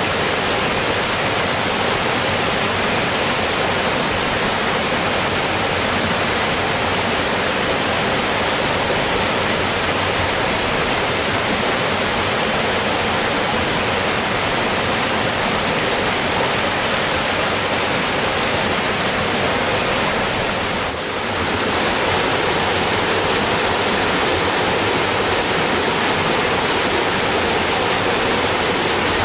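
A small mountain stream cascading over rocks, a steady rush of water that dips briefly about two-thirds of the way through.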